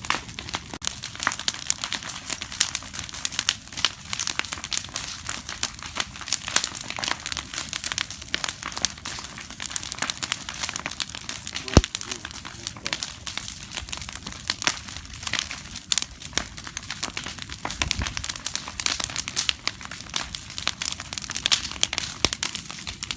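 Bonfire crackling and popping: a dense, irregular stream of snaps, with one sharper crack about halfway through and a low thud a few seconds later.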